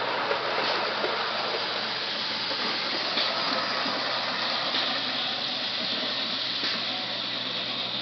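Hornby Live Steam model locomotive running on its track with a steady steam hiss and a few faint clicks.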